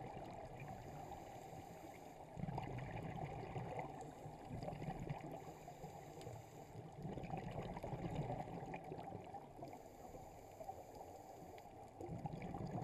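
Scuba regulator breathing heard underwater: a short hiss of each inhalation, then the low bubbling of the exhaled breath, three breaths about five seconds apart.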